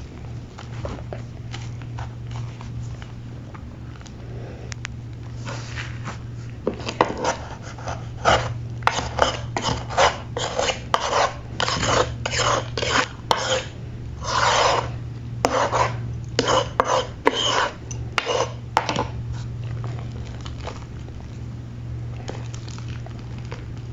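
A cake of gym chalk being crushed and crumbled: a quick run of crisp crunches and scrapes, thick in the middle stretch, with fainter, sparser scraping before and after.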